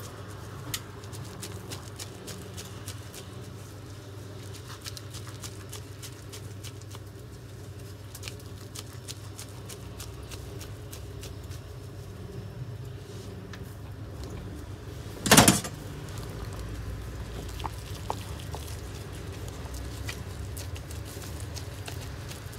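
Gloved hands squeezing and patting wet ground beef onto a flat metal skewer: soft scattered squelches and clicks over a steady low hum. About fifteen seconds in comes one brief loud knock, the loudest sound.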